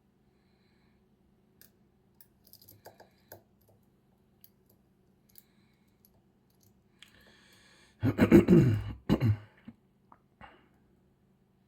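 Faint, scattered clicks of a lock pick and tension wrench working the top-row pin stacks of a KESO 8000 Omega² high-security cylinder. About eight seconds in, a person loudly clears their throat for a second or so.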